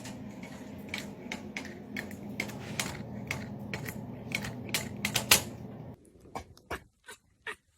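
A run of sharp, irregular clicks and taps, a few a second, over a low steady hum. About six seconds in, the hum cuts out and the clicks continue more evenly spaced on near-silence.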